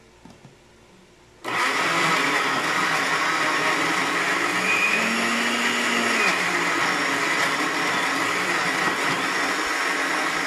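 Countertop electric blender switched on about a second and a half in, then running steadily as it churns mango pieces in its glass jar into a shake.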